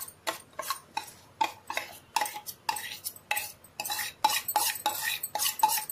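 Steel spoon knocking and scraping against a steel bowl, about three quick metallic clinks a second, each with a short ring, as soaked semolina is scooped out into a mixer-grinder jar.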